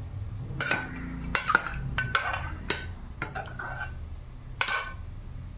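A steel ladle clinking and scraping against a small aluminium pressure cooker while boiled pieces of goat spleen are lifted out of the cooking water. It is a string of sharp metallic clinks, several with a short ring.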